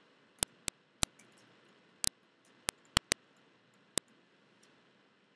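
Plastic stylus tip tapping down on a writing tablet while words are handwritten: about ten sharp clicks at irregular intervals, most of them in the first four seconds.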